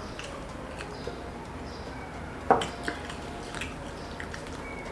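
Tableside eating sounds: small clicks of hands and food on plates, with one sharp knock about two and a half seconds in, a drinking glass set down on the table.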